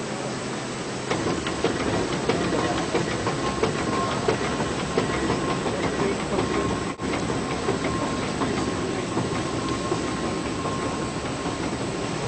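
Paddle steamer's triple-expansion steam engine and paddle wheels working, a fast rhythmic clatter over a steady churning, louder from about a second in.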